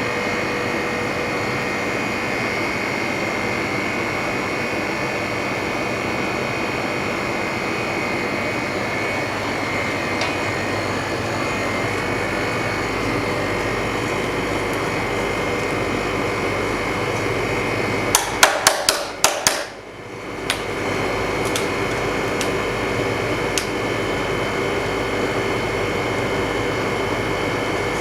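LCD freezer machine running steadily, its cooling system giving a constant noise with a faint high whine and a lower hum. About two-thirds of the way through comes a quick run of six or seven sharp clicks, after which the running noise drops away for about a second and then comes back.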